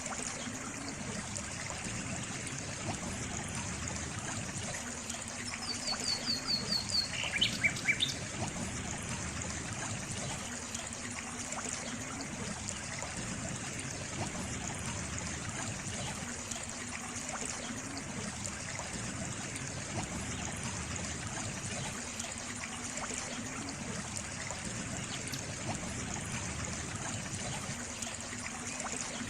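Steady trickling water, like a small stream. About six seconds in, a bird calls briefly: a quick run of high notes, then a few lower slurred notes.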